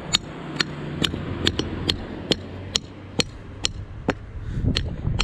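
Claw hammer striking the head of a long steel bolt, driving it through the joined curb ramp sections: a steady run of sharp taps, about two a second.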